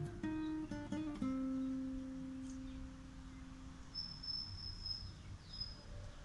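Acoustic guitar background music: a few plucked notes, then one note left ringing and slowly fading. A faint, high, thin whistle is held for about a second near the end and finishes in a short falling sweep.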